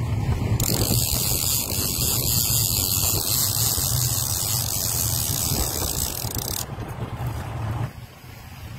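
Outboard motor running steadily as the boat moves, with a hiss of wind and rushing water over it for most of the time. The engine note drops away sharply about eight seconds in, as the boat is throttled back.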